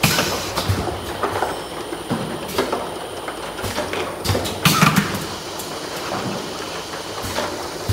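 Automatic bottle filling and sealing line running: a steady mechanical noise with a faint high whine, and irregular knocks and clatter of plastic bottles on the conveyor and star wheel, the loudest a little under five seconds in.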